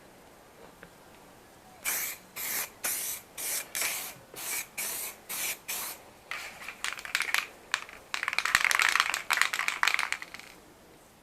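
Aerosol rattle can of car primer spraying: first a quick run of short bursts, two or three a second, then longer continuous passes that grow louder before cutting off near the end.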